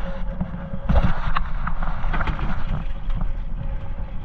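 Small fishing boat on the water with its motor running steadily and wind on the microphone, and several knocks and clatters on the boat, the loudest about a second in.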